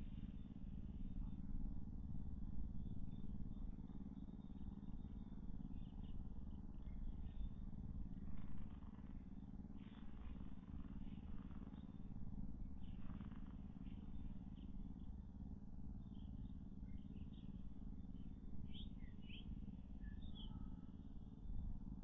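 Steady low rumble of outdoor background noise at a nest, with a few soft rustles and some faint short bird chirps about three-quarters of the way through.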